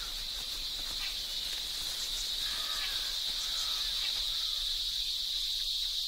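Chorus of many cicadas chirring in the trees: one steady, high-pitched shrill drone that holds an even level throughout. It is the males calling to attract females.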